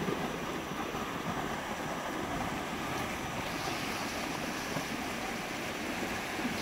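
Fast-flowing river rushing over shallow rapids: a steady hiss of moving water that grows brighter about halfway through.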